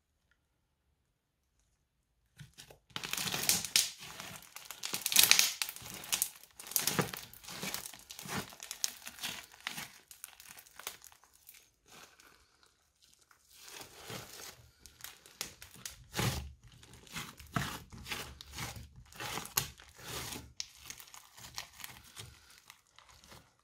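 Crunchy slime packed with tiny beads being squeezed, stretched and pressed by hands: dense crackling and popping clicks. It starts after about two and a half seconds of silence and eases off briefly about halfway through.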